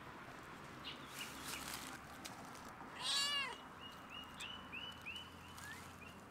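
Calico cat meowing once, loudly, about halfway through, the call rising then falling in pitch.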